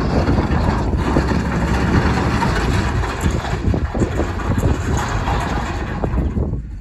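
Chevrolet dump truck's engine running as the truck drives slowly over gravel, with a steady rumble and the crunch of tyres on loose stones. The sound eases off shortly before the end.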